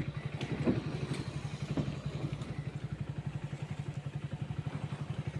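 An engine idling with a steady, even chug of about ten pulses a second, and a few light knocks in the first two seconds.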